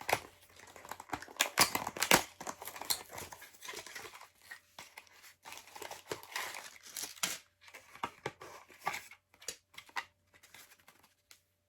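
A LEGO set's packaging being cut open with a cutter and pulled apart: irregular cuts, tearing and crinkling in a small room.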